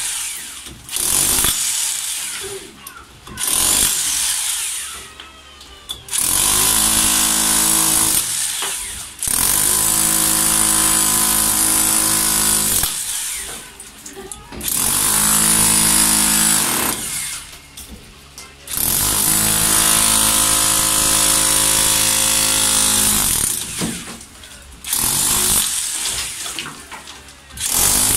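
Ingco electric demolition hammer chiselling reinforced concrete. It runs in repeated bursts of a few seconds, with short pauses between them. The longest runs last three to four seconds.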